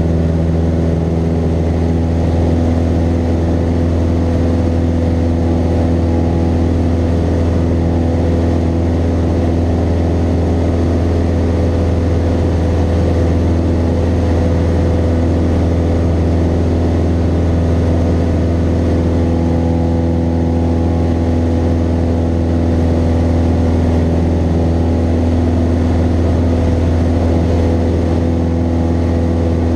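Cessna 172N's four-cylinder Lycoming engine and propeller droning steadily at takeoff power through the takeoff roll and climb-out, heard from inside the cabin.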